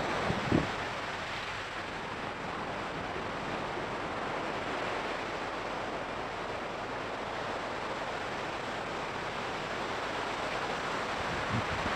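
Steady hiss of ocean surf and wind on the beach. A couple of short low thumps come just after the start and again near the end.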